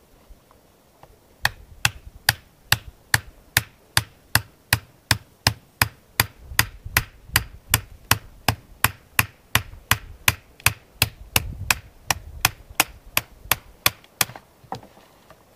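Batoning wood: a knife blade set across the end of an upright branch is struck on its spine again and again. The sharp, even knocks come at about two or three a second for some thirteen seconds as the blade is driven slowly through a knot in the wood.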